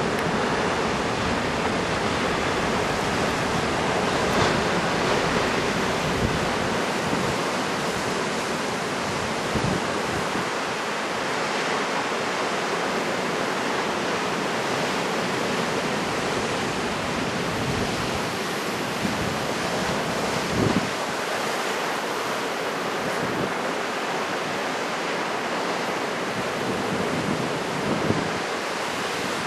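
Steady roar of heavy typhoon surf breaking, with wind gusting on the microphone in a few brief low thumps.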